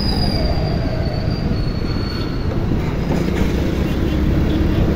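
Steady wind noise on the microphone and road noise from a moving scooter. A faint high whine fades out about halfway.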